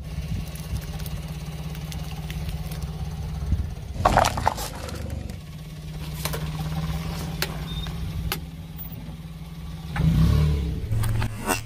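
A car's engine runs low and steady as its tyre rolls over small objects. About four seconds in, the tyre crunches wrapped hard-candy lollipops. Then it cracks a pile of liquid-filled plastic syringes, with a few sharp snaps and a louder crunch near the end.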